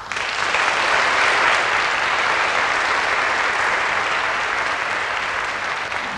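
Audience applauding, breaking out suddenly as the orchestral music stops, holding steady and tapering off near the end.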